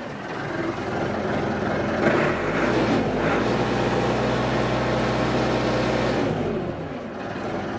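Diesel engine of a 1992 Massey Ferguson 50HX backhoe loader running steadily. It gets louder and brighter for a moment about two seconds in, then eases off near the end.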